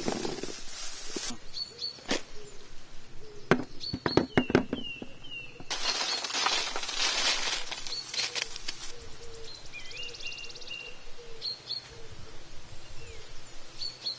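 Shallots tumbling onto a plastic sheet in a dense rattle for about the first second, followed by scattered sharp knocks and, a little under halfway, a few seconds of dry rustling. Small birds chirp in short calls throughout.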